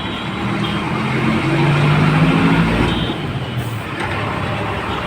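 Road traffic: a motor vehicle's engine passes close, growing louder toward the middle and then fading, over steady street noise, with a short high horn toot about three seconds in.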